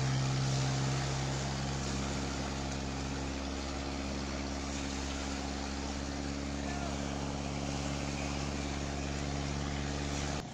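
Motorized outrigger boat (bangka) engine running steadily at a constant speed, an even drone. Its tone shifts slightly about three seconds in, and the sound drops off abruptly near the end.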